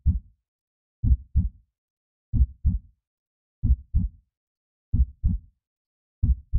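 Heartbeat sound effect: slow, steady lub-dub double thumps, low in pitch, one pair about every 1.3 seconds (roughly 46 beats a minute) with silence between beats.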